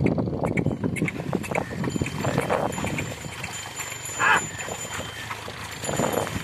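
Harnessed water buffalo stepping through flooded paddy mud, their hooves squelching and splashing in uneven steps. A short louder call comes a little over four seconds in.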